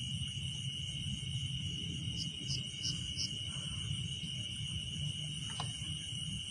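Insects chirring: a steady high trill with a few short, quick chirps about two to three seconds in, over a steady low rumble.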